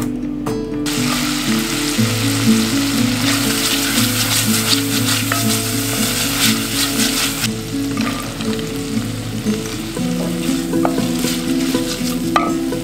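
Diced onion and pancetta sizzling in an enamelled cast-iron casserole as they are stirred with a wooden spoon: the start of a ragù. The sizzle strengthens about a second in and eases off past the middle, over background music.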